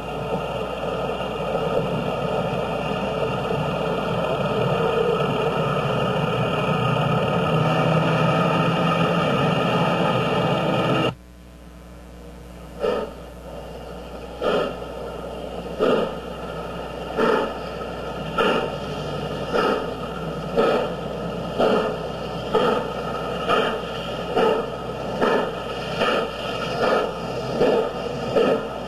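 Steady road and wind noise from a moving car, cutting off abruptly about eleven seconds in. Then the exhaust beats of Southern Pacific 4449, a GS-4 4-8-4 steam locomotive, approaching under steam; the beats come about once a second and quicken toward the end.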